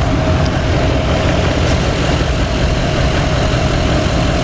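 Steady mechanical running noise from a Dodge Ram 1500 pickup, with its train-horn air compressor working again after a failed relay was replaced.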